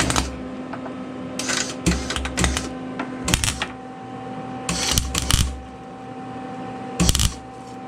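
MIG welder laying short tack welds on a steel rear quarter patch panel: about five brief crackling bursts, the longest near the middle, over a steady low hum.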